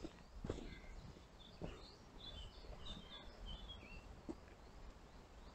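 Faint woodland birdsong, a quick run of short high chirps through the middle, with a few soft footsteps on a dirt path growing fainter as a hiker walks away.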